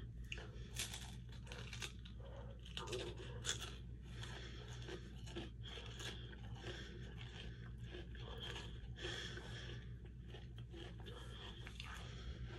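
Close chewing and crunching of a chocolate-coated Oreo ice cream cone, an irregular run of crisp little crunches over a faint low hum.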